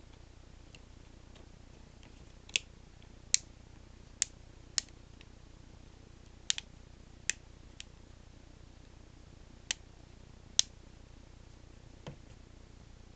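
Small, sharp clicks, about eight at uneven gaps, as a budget Alcatel smartphone's parts are fitted back together by hand.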